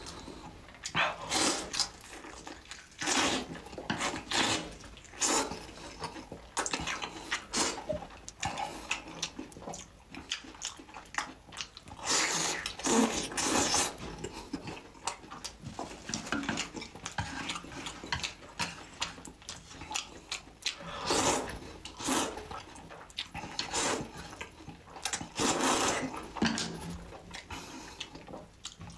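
Close-miked eating sounds of a sauce-coated fried chicken leg being bitten, chewed and sucked off the bone: irregular wet smacks and chewing noises, with louder clusters about halfway through and near the end.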